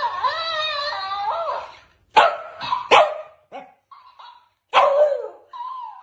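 A warbling, voice-like sound for the first couple of seconds, then a Shiba Inu barking: a few sharp barks starting about two seconds in, with shorter yaps between.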